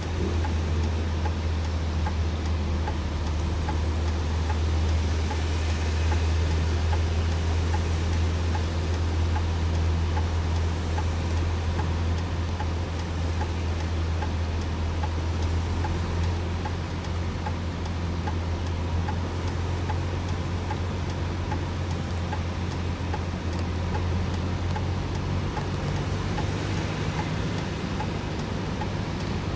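A vehicle engine running steadily with a low hum, with a light, regular ticking over it.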